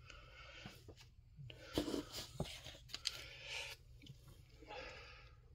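Comic books being handled and drawn out of a cardboard box: soft rustling and scraping of paper against cardboard, with a few light knocks, coming in short spells about two seconds in, around three seconds in and again near the end.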